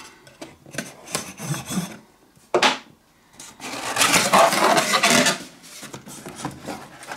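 A cardboard box being cut open with a pocket knife and pulled open by hand: short scrapes, a sharp rasp a little over two seconds in, then a longer, louder stretch of cardboard rubbing and scraping about halfway through.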